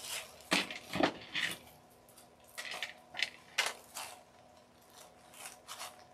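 Paper coffee filters and lace rustling and crinkling as they are handled and pressed down by hand, in about a dozen short, irregular rustles.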